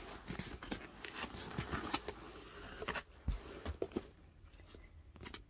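A cardboard mailing box being opened by hand, its flaps pulled and folded back, then the wood-wool packing inside rustled. Dense rustling with many small clicks for about three seconds, then a few sharp knocks and quieter handling.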